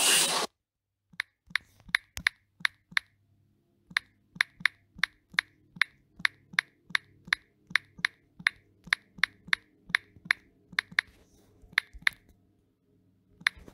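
Smartphone on-screen keyboard key clicks, one short click for each letter typed, about three a second with a brief pause, then two last taps near the end.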